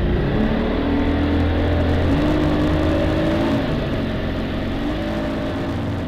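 Motorboat engine running under way, its pitch rising and falling as the revs change, over a rush of wind and water.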